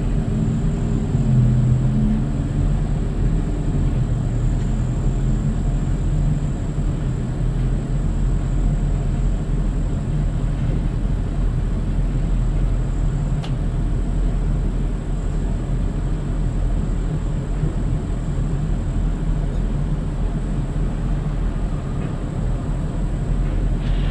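A motor vehicle running steadily: an even low engine rumble, a little stronger in the first two seconds, with a thin high whine held throughout.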